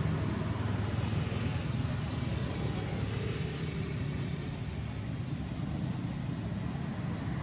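Steady low outdoor background rumble with a fainter hiss above it, even throughout, with no distinct calls or knocks.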